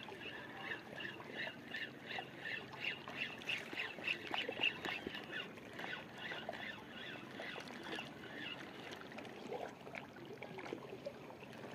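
Fishing reel being cranked to retrieve a lure: a faint rhythmic rasp, about three to four strokes a second, that fades after about six seconds into a few scattered ticks.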